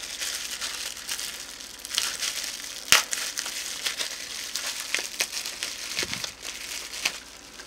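Bubble wrap crinkling and crackling as hands unwrap a small plastic-cased device from it, with one sharp click about three seconds in.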